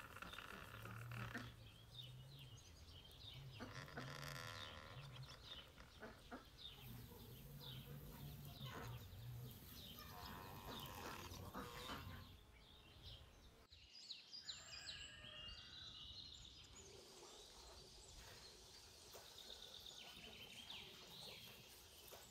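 Faint outdoor ambience of small birds chirping, many short high calls throughout.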